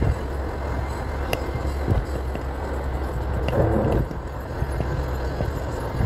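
Steady low drone of a vehicle travelling at speed, engine and road noise mixed with wind rush, with a brief louder rush about three and a half seconds in.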